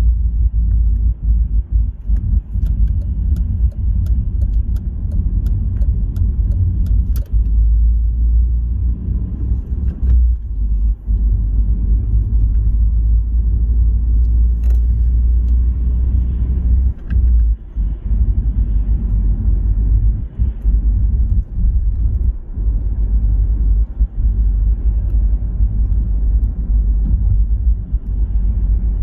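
A car travelling at motorway speed: a steady low road and tyre rumble, with a few faint light clicks or rattles over the first several seconds and once more near the middle.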